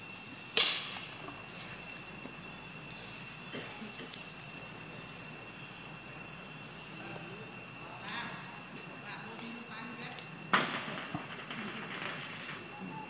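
Steady, high-pitched chorus of insects buzzing over outdoor background noise. Two short, sharp noises stand out, one about half a second in and a louder-tailed one about ten seconds in, with a few fainter clicks between.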